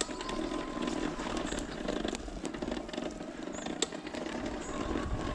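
Kettler e-bike's electric motor running under heavy load on a steep climb at the highest assist level, a steady whine with scattered clicks. The drive sounds dry, which the rider takes for a motor that needs greasing and is near its wear point.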